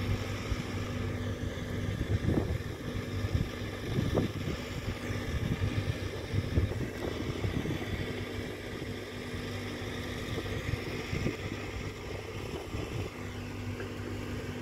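Steady low drone of a boat engine running at a distance, over a wash of wind and water noise with a few irregular louder surges.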